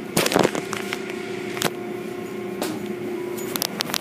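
Automatic car wash machinery humming steadily behind glass. A loud burst of noise comes just after the start, then several sharp clicks, bunched together near the end.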